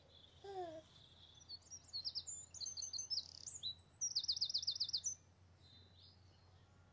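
Songbirds chirping and whistling, with a rapid trill for about a second near the end of the calls. About half a second in, a baby's short falling-pitched coo sounds once.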